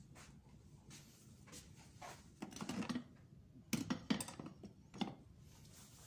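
Handling noises at a drip coffee maker: a short rustling clatter, then a few sharp plastic clicks and knocks, the last about five seconds in.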